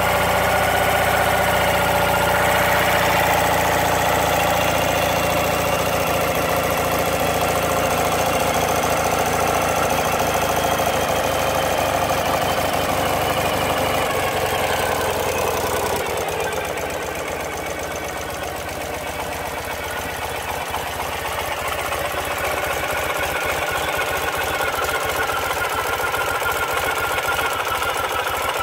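2012 Ural Patrol's 750cc air-cooled flat-twin engine idling just after a cold start, with the enrichners on both carburetors pulled out. The sound changes about halfway through, dipping a little in level before building again.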